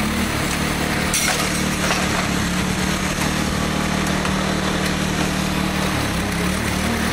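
A small engine running steadily, with a constant drone and hiss. Its pitch wavers briefly right at the start and again about six seconds in.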